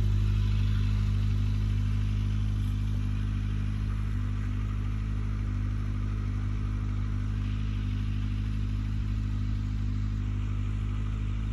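Kawasaki Ninja ZX-25R's inline-four engine idling steadily through a Yoshimura R77 full exhaust, as a low even hum that eases off slightly over the first few seconds and then holds level.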